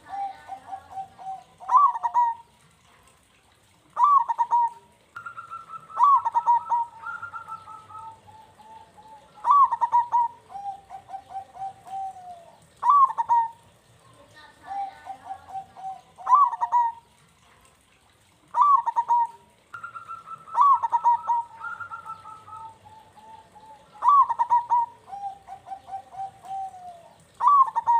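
Zebra dove (perkutut) singing its cooing song. A phrase comes every few seconds: a loud opening coo, then a quick run of rolling lower coos.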